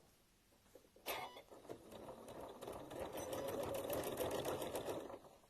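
Sewing machine stitching through the layers of a fabric bowl, starting about a second in with a click, picking up speed, then stopping just before the end.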